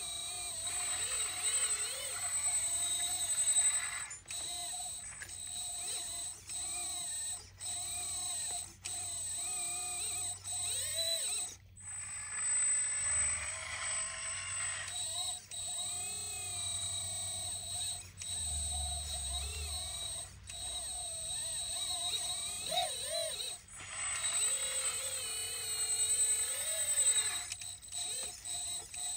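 1/14-scale RC hydraulic excavator working: its electric hydraulic pump runs with a steady high whine, while a lower whine keeps rising and falling in pitch as the arm and bucket move under load, cutting in and out many times.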